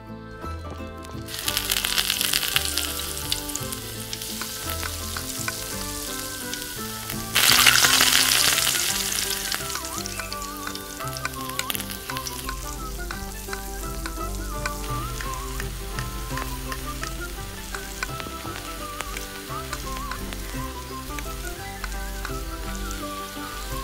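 Food frying in hot oil in a miniature pan, sizzling steadily. A sudden, much louder sizzle comes about seven seconds in and slowly dies down.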